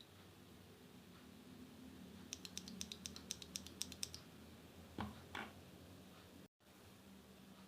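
Typing on a foam-modded aluminium-case mechanical keyboard with tactile switches: a quick run of about a dozen light keystrokes, then two louder, deeper strokes about a second later.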